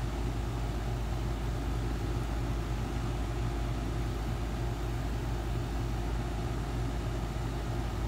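Carrier rooftop air-conditioning unit running in cooling: a steady low hum from the compressor under the even rush of the condenser fan.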